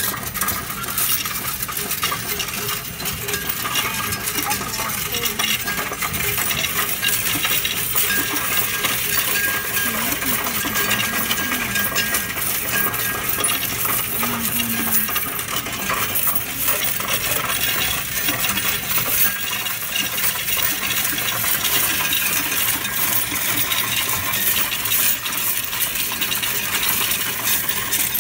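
Loose coins clinking and jingling without a break as hands rake and push a pile of them around a metal coin tray.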